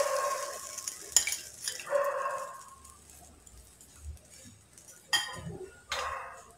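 Thin wheat-flour batter pouring from a bowl into a nonstick kadai, the pour trailing off within the first second. Then come a few light clinks and knocks of kitchenware, with a short pitched call at the start and again about two seconds in.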